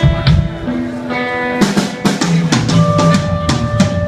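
Instrumental rock band playing live: guitar notes ringing over drum-kit hits, with a strike at the start and a run of quick hits from about halfway in.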